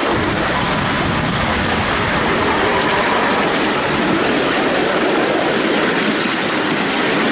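Miniature steam railway train running along the track, heard from a riding car: a steady noise of wheels on the rails with faint clicks.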